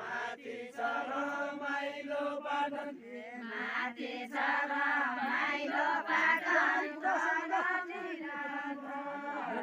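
Deuda, a Nepali folk song, sung in a repetitive chant-like melody by a group of voices together, with a short lull about three seconds in.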